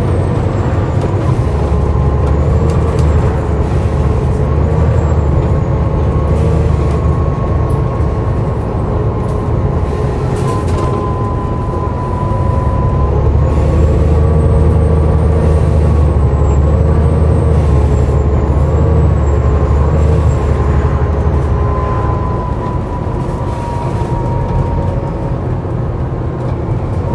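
Volvo B7TL double-decker bus running on the road, heard on board: a heavy engine and road rumble that swells as it pulls and eases off in between, with a steady groaning whine that wavers slowly in pitch above it.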